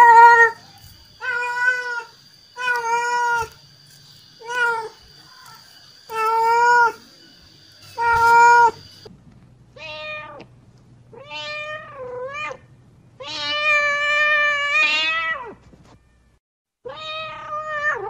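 A mother cat meowing over and over to call her kittens. The first calls are short and come at an even pace; later calls are longer and drawn out, one lasting about two seconds.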